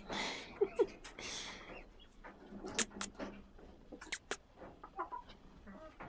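Chickens clucking a few short notes, among rustling and several sharp clicks.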